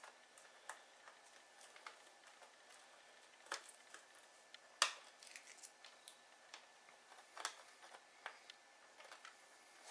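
Faint, scattered clicks and light scrapes of hands handling a plastic NERF Zombie Strike Sledgefire blaster, the sharpest click about five seconds in.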